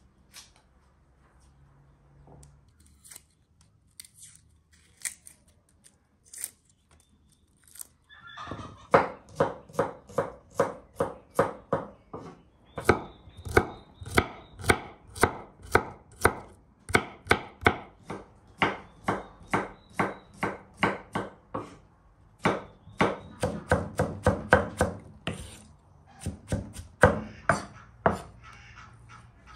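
Kitchen knife chopping onion on a wooden cutting board: a few scattered cuts at first, then, about eight seconds in, steady quick chopping at two to three strokes a second, with a brief pause about three quarters of the way through.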